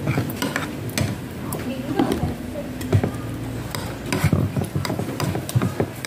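Metal spoon clinking and scraping against a bowl of champorado as a child scoops and eats, giving a string of irregular sharp clicks.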